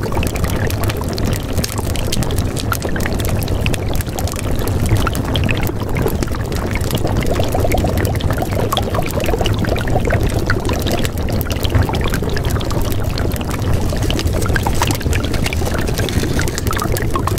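A steady sound of pouring or running water, with many small crackles.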